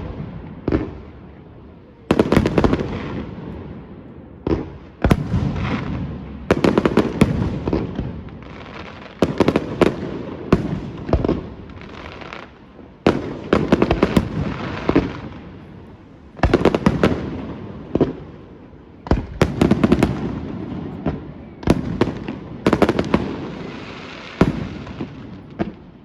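Aerial fireworks display: clusters of sharp bangs and crackles every two to three seconds, each followed by a long echoing rumble that dies away before the next salvo.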